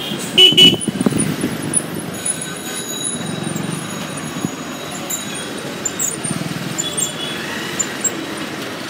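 Road traffic heard from a motorbike riding slowly in dense traffic beside buses: a steady engine and road rumble, with a short loud sound about half a second in.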